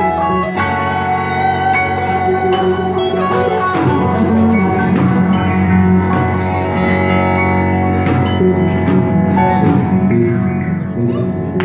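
Yamaha Montage 8 synthesizer played four-handed by two keyboardists: loud held chords over a steady low bass, with many sharply struck notes on top.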